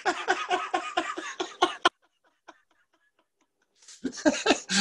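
People laughing heartily over a video call in a run of quick rhythmic bursts. The laughter cuts off suddenly just under two seconds in, goes near silent for about two seconds, then resumes with breathy gasps near the end.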